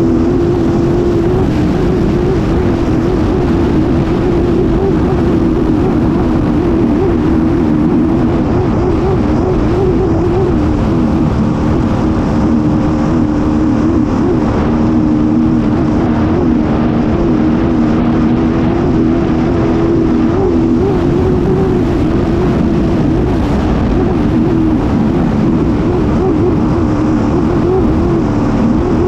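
Racing hydroplane's engine running hard, heard from on board, its pitch wavering up and down without a break, over a steady rush of wind and water spray.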